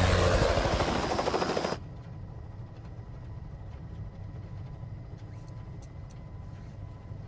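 Helicopter rotor blades chopping loudly as it flies past. About two seconds in, this cuts abruptly to a steady, muffled low rumble heard from inside the helicopter's cabin.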